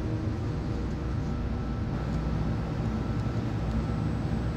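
Steady low rumble and hum of workshop background noise, with a few faint light ticks from handling small parts.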